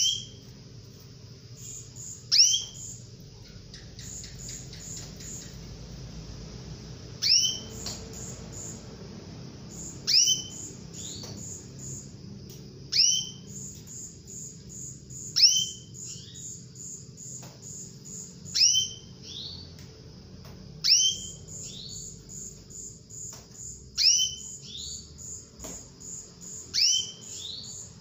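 Female domestic canary calling: a sharp, high, downward-sweeping call repeated about every two to three seconds, with runs of quick high ticking notes between the calls.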